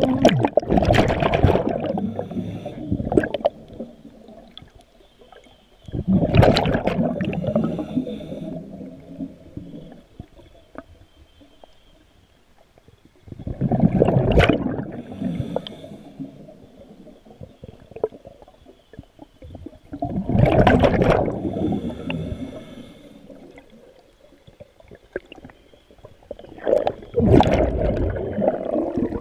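Scuba diver's breathing heard underwater: exhaled bubbles rush out of the regulator in five loud bursts, about every six to seven seconds, with quieter stretches between breaths.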